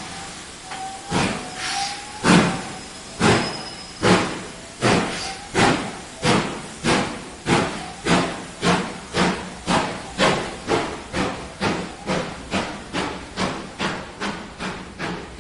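Steam locomotive chuffing as it pulls away: sharp exhaust beats over a steady hiss, speeding up from about one a second to about two and a half a second.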